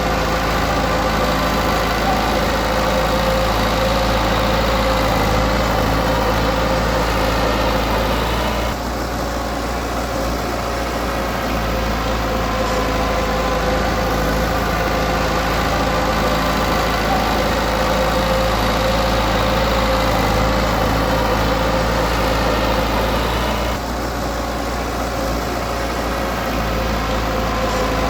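Heavy-equipment diesel engine running steadily with a low rumble, its level and pitch dipping briefly twice.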